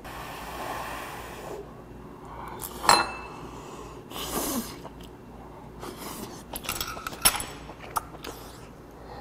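A person slurping, sucking and chewing steaming-hot food, with breathy huffs through the mouth. A few sharp clinks of metal chopsticks against dishes are heard, the loudest about three seconds in.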